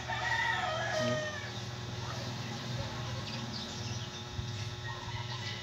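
A rooster crows once, a call of about a second right at the start that falls in pitch at its end, over a steady low hum.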